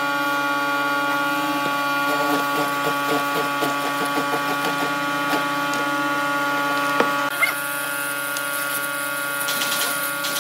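MK361A hollow-chisel mortising machine running with a steady motor hum, its chisel chopping into a wooden board with quick repeated ticks, and a sharp knock about seven seconds in.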